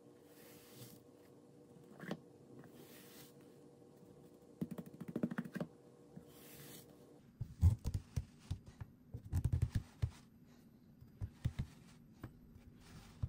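Kinetic sand being cut and squished: a short run of crisp crackling crunches, then heavier, duller crunches in clusters.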